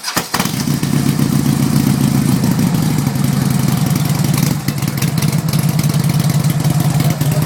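Harley-Davidson Electra Glide Classic's V-twin engine catching at the very start and then idling loudly and steadily.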